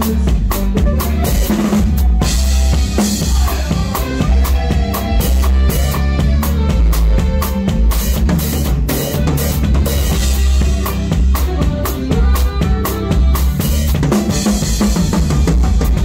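Live band playing an instrumental passage, led by a drum kit: steady kick drum, snare and rimshots over bass and other pitched instruments, with no singing.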